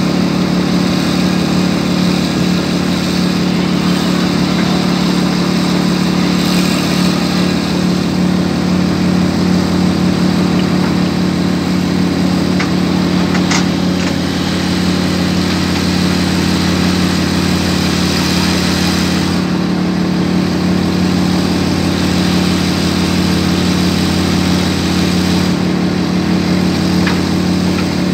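Excavator's diesel engine running steadily close by, a loud unbroken drone with a slight shift in its low tone about two-thirds of the way in.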